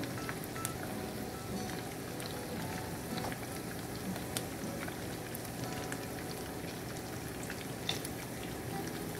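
Shrimp sizzling in hot oil and butter in a skillet, a steady frying hiss with scattered small crackles and pops.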